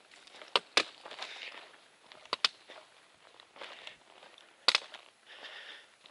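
Footsteps of a hiker walking on a rocky trail: uneven scuffs and crunches with several sharp clicks on rock, the loudest about four and a half seconds in.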